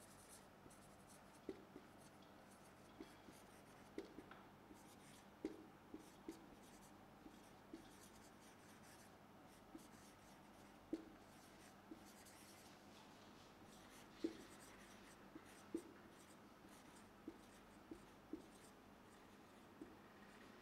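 Marker pen writing on a whiteboard: faint, short squeaks and taps from the pen strokes, irregularly spaced at about one a second, over quiet room tone.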